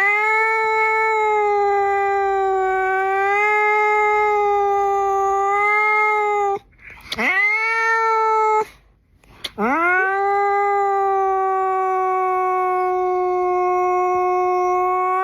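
A cat yowling in three long drawn-out calls, each sliding up at the start and then held on one steady pitch. The first lasts about six seconds, a short one follows, and a long one starts near the ten-second mark and carries on.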